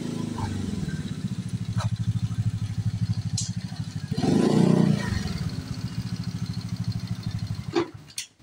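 Small motor scooter engine idling with a steady low putter. It briefly gets louder about four seconds in, then cuts off near the end, followed by a couple of sharp clicks.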